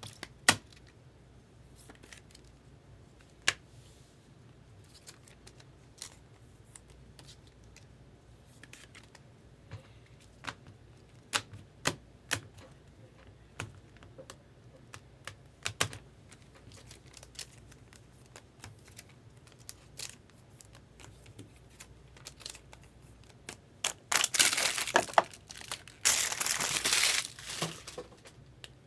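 Trading cards handled on a table, giving scattered sharp clicks and taps. About 24 s in come a few seconds of loud crinkling and tearing of packaging as the next cards are opened.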